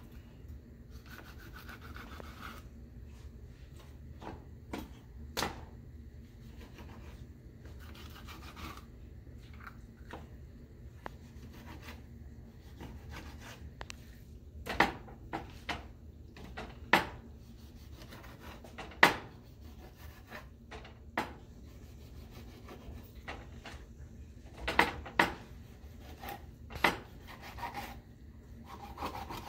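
Kitchen knife scoring slits into whole raw snapper on paper towel over a wooden cutting board: soft scraping and rustling of the blade through skin and paper, with sharp taps of the knife on the board, bunched in the middle and again near the end.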